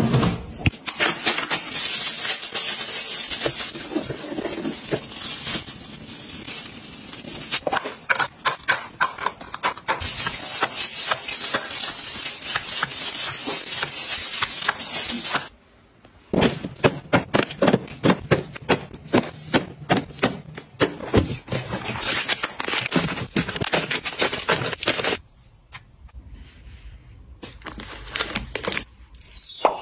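Groceries in plastic packaging being handled and packed away into a refrigerator: dense crinkling with quick clicks and knocks of plastic containers, a brief pause about halfway through, and quieter handling near the end.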